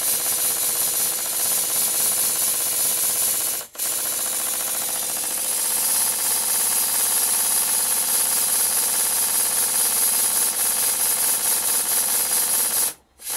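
Stuart Double 10V twin-cylinder model steam engine running fast on compressed air: a rapid, continuous clatter of exhaust beats with a strong airy hiss. It cuts out briefly about four seconds in and again just before the end. It is running strongly with a lot of power now that its slide valves have been turned round and the eccentrics reset.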